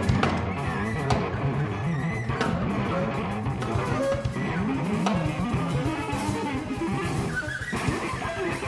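Live improvised music from a trio of electric guitar, drum kit and saxophone playing together, a dense texture at an even loudness throughout.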